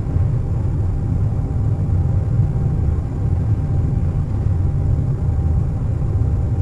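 Airliner cabin noise at cruise: a steady, deep rumble with a faint, thin steady tone above it.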